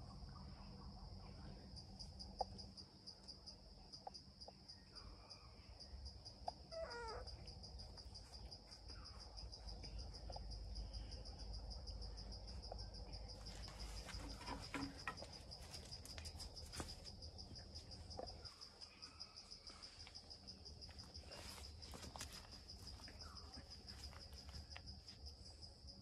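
Insects chirping in a steady, fast, even pulse, faint against a low background rumble, with a few scattered clicks.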